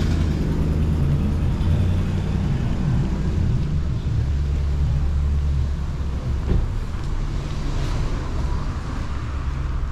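A motor vehicle's engine running close by in street traffic: a low, steady hum that shifts in pitch a couple of seconds in and fades about two-thirds of the way through.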